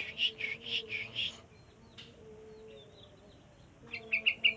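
Sooty-headed bulbul (burung trucuk) singing: a run of about five loud notes, then a few faint chirps, then a quick burst of short notes near the end.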